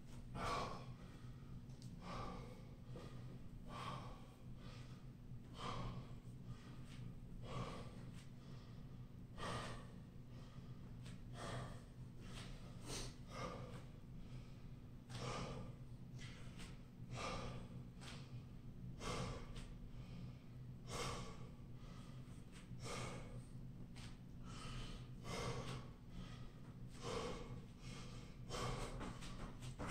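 A man breathing hard after high-intensity interval exercise, about one loud breath a second, over a steady low hum.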